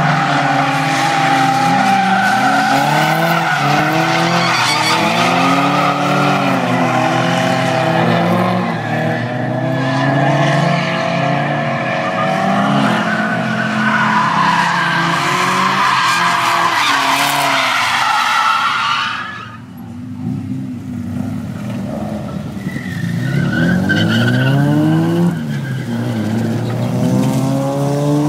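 Drift cars sliding through a cone course: engines revving up and down and tyres squealing. About two-thirds of the way through it briefly drops off, then another car's engine revs and its tyres squeal again.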